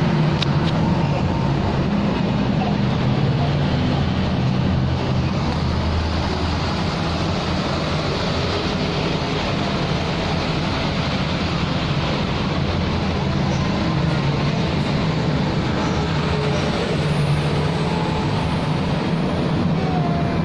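A steady low engine-like rumble with a hiss over it, unchanging throughout.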